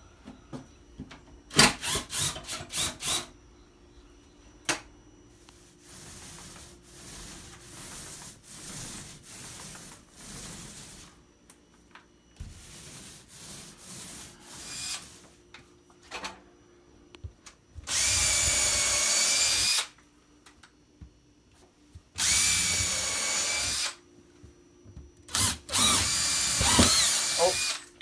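Cordless impact driver driving screws into wooden wall trim and shelving, run in several separate bursts of about two seconds, the loudest three coming in the last third.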